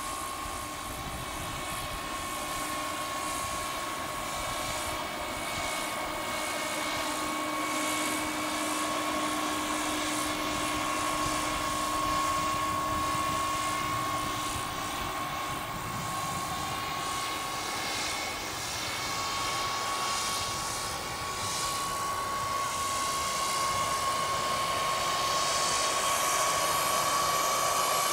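Turbine engine of a scale RC Sikorsky S-64 Skycrane model helicopter in flight: a steady high whine over the rushing of the rotor, growing louder toward the end as the model comes closer.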